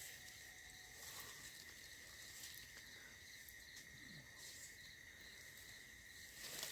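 Faint, steady chirring of night insects such as crickets: one continuous high tone, with a few faint rustles and ticks.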